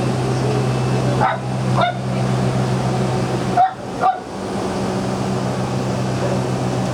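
Small dogs barking: four short sharp barks in two pairs, about two seconds apart, over a steady low hum.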